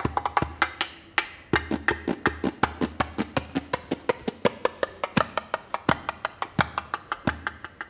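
Djembe played with bare hands in a fast rhythm of sharp slaps and tones over deep bass strokes. The playing eases briefly about a second in, then picks straight back up.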